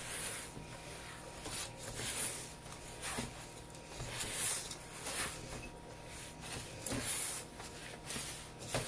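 Hands squeezing and working a crumbly, just-forming dough of pancake mix and water in a stainless steel bowl: soft rustling, squishing strokes about once a second, with the occasional light knock against the bowl.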